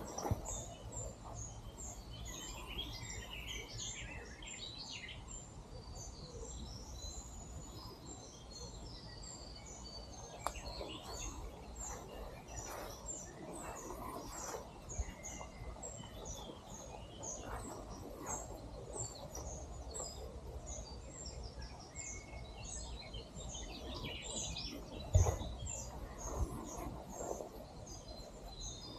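Woodland birds chirping and calling throughout, many short high notes overlapping, over a low steady rumble. A single sharp thump sounds about three-quarters of the way through.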